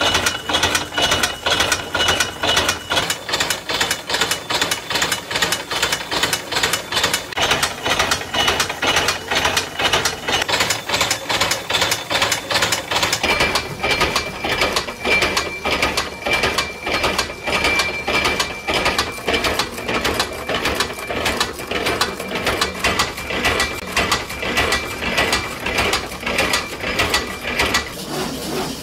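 Camphor tablet press running: a fast, regular mechanical clatter as the punch stamps powder into tablets, with a faint steady high whine under it.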